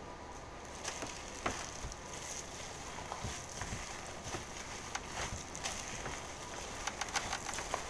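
Raw ground-meat meatloaf mixture being kneaded by hand in a stainless steel bowl: soft wet squishing with scattered clicks and taps against the bowl, several in quick succession near the end.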